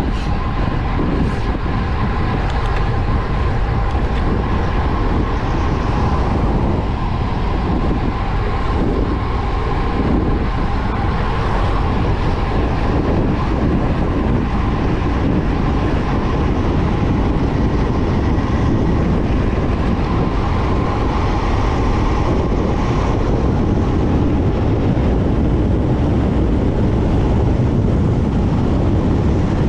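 Wind rushing over the microphone of a road bike descending at speed, a loud steady rumble with the hum of the tyres on asphalt and a faint steady whine.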